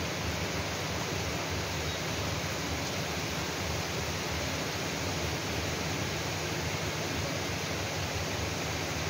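Steady, even hiss of heavy rain falling.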